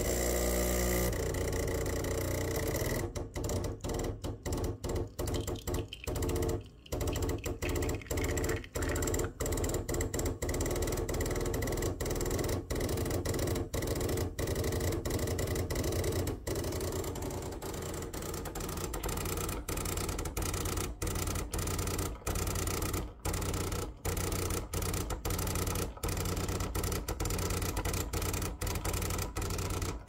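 The vibratory pump of a Gaggiuino-modded Gaggia Classic Evo Pro is buzzing as it brews an espresso shot. The buzz keeps cutting out very briefly many times over, and it stops abruptly at the very end as the shot finishes.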